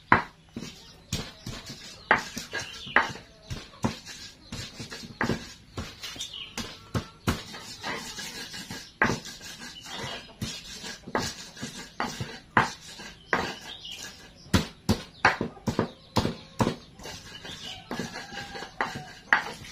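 Stone ulekan pestle knocking and grinding in a shallow cobek mortar, crushing chillies and bawang into a spice paste: sharp, irregular knocks about one to three a second.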